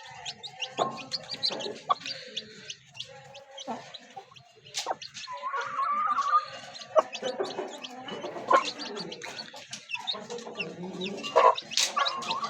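Aseel chickens: many short high peeps of chicks over lower clucking throughout.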